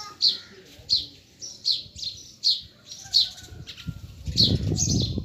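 A small bird chirping: short high notes that sweep downward, repeated roughly once every 0.7 seconds. A low rustling noise joins in near the end.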